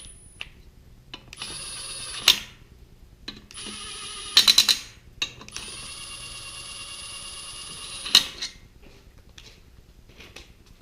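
Electric impact running the cylinder head bolts down on a Kohler K-series engine: three separate bursts of motor whine, the middle one breaking into a quick rattle of impact blows as the bolt tightens, the last and longest lasting about two and a half seconds. Sharp clicks mark the ends of the runs, and small handling clicks follow.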